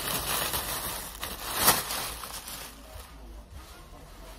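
Plastic shopping bag rustling and crinkling as it is handled, loudest about one and a half seconds in, then fading to quieter handling noise.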